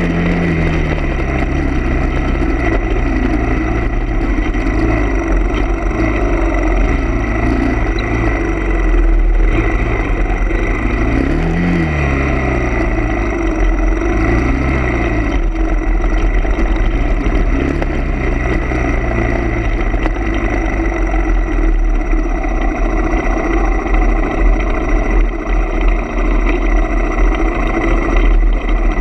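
A vehicle engine running steadily, its pitch rising and falling a few times as it revs up and eases off, over a continuous rumble.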